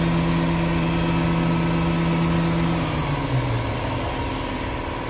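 Spindle of a Haas VF-3SS CNC vertical machining center running at steady speed with a steady hum and high whine, then winding down about three seconds in, the pitch gliding down as it slows.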